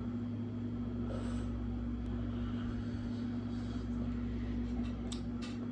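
Steady low mechanical hum with one constant held tone, unchanging throughout.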